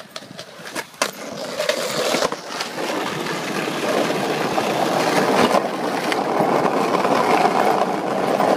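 Skateboard wheels rolling over rough pavement, a steady gritty rolling noise that builds in loudness after the first couple of seconds. A few sharp clacks of the board come within the first second.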